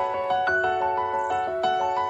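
Background music: a light piano or keyboard melody of quick, evenly struck notes.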